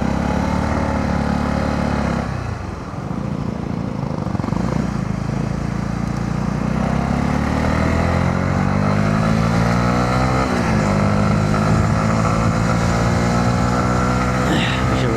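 Honda CB125R's single-cylinder engine under way, with rushing noise over it. It eases off about two seconds in, then rises steadily in pitch as the bike accelerates, drops briefly near ten seconds in at a gear change, and holds at a higher pitch.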